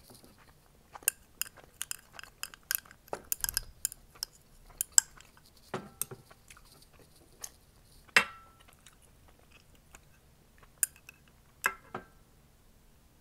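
Metal chopsticks clicking and scraping against a glass food container while picking out cheesy tteokbokki. There is a quick string of sharp taps in the first half, a single ringing clink about eight seconds in, and a few more taps near the end.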